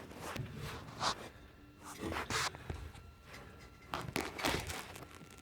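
Scattered scrapes, rustles and light knocks of hands and tools working inside a furnace cabinet during removal of the blower assembly, coming in irregular bursts with the busiest stretch around four to five seconds in.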